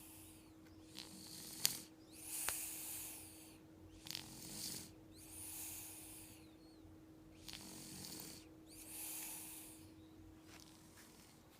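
Snoring in slow, regular breaths a couple of seconds apart, mostly airy hiss with a faint low rattle. A few short sharp clicks come in the first half, the loudest about one and a half seconds in.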